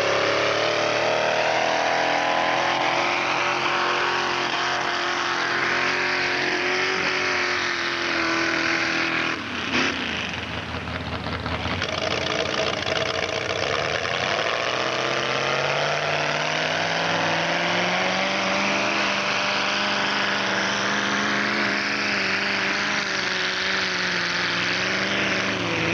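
Engine of a 4x4 mud-bog truck revving hard through the mud pit, its pitch climbing and holding high. It drops away briefly about ten seconds in, then climbs again.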